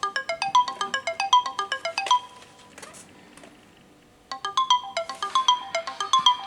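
Samsung Galaxy phone sounding a ringtone: a fast run of short, bell-like notes lasting about two seconds, a pause, then the same phrase again.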